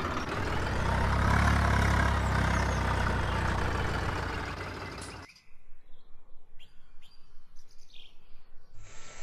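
A loud, low, steady noise that swells about a second in and cuts off abruptly about five seconds in. After it, birds chirp faintly.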